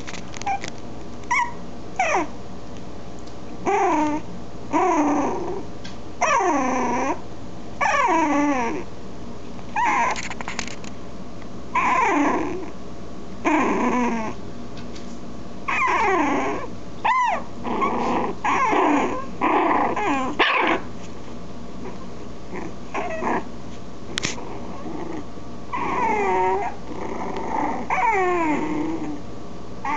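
Chihuahua–Pomeranian mix puppies play-fighting, giving repeated high-pitched squeaky growls and whimpers, each call sliding down in pitch, about one a second with a short lull about two thirds of the way through.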